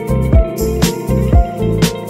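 Background music with a steady beat: a deep kick drum about twice a second and a sharp clap about once a second, over held notes.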